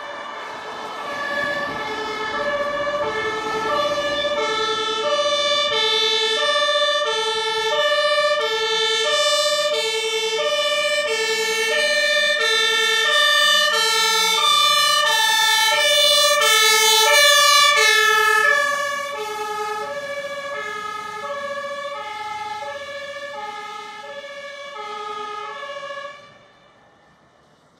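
German fire engine two-tone siren (Martinshorn) on an HLF 20/16 rescue fire engine, alternating steadily between a low and a high tone, each held about two-thirds of a second. It grows louder as the truck approaches and is loudest about 17 seconds in. It drops in level and slightly in pitch as the truck passes, then stops about 26 seconds in.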